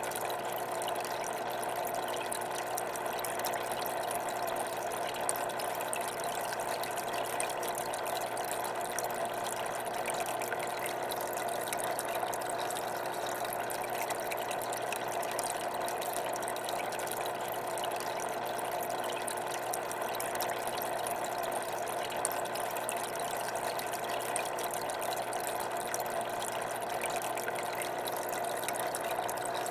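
Aquarium filter and powerhead running: a steady rush of circulating water with a faint, even motor hum.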